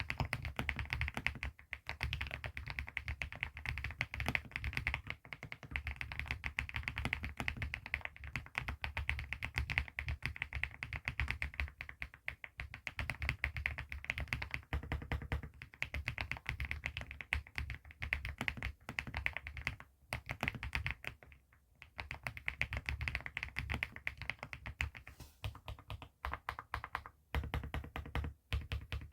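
Fast, continuous typing on a mechanical keyboard fitted with HMX Macchiato switches and ceramic (porcelain) keycaps: dense clacky key taps, with a few short pauses in the second half.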